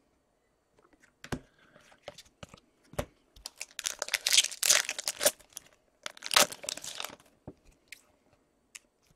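The wrapper of a hockey card pack being torn open and crinkled, in two bursts about four and six and a half seconds in, with scattered clicks of cards being handled before them.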